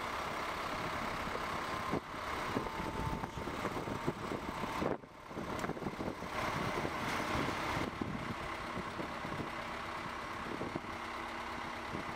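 Diesel engine of a Komatsu PC200 excavator on an amphibious pontoon undercarriage running steadily, with a brief drop in the sound about five seconds in.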